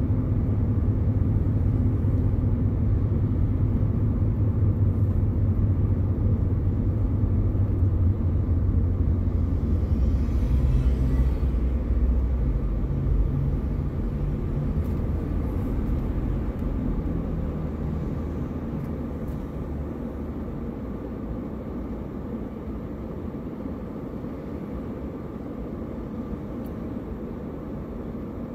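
Car driving, heard from inside the cabin: a steady low engine and road rumble that drops off about halfway through as the car slows to a stop and sits idling.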